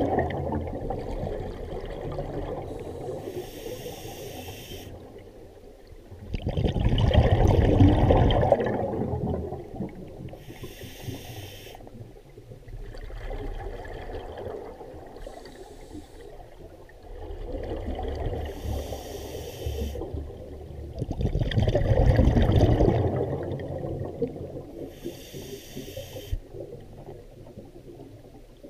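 A scuba diver breathing underwater through a regulator: hissing inhalations alternate with louder rushes of exhaled bubbles, a slow cycle repeating every several seconds.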